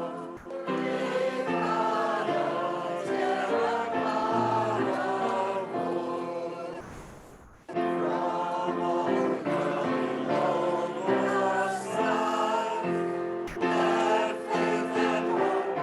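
A hymn sung by many voices together. The sound fades almost away about seven seconds in, then comes back abruptly under a second later.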